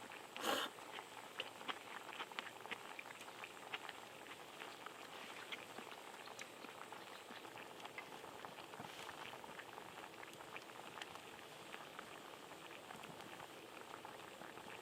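Shabu-shabu broth bubbling at a boil in a camp pot, with many small pops and crackles that are densest over the first few seconds. A brief louder noise comes about half a second in.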